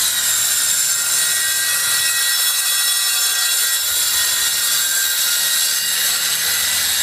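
Handheld circular saw running steadily as it cuts across a sheet of plywood.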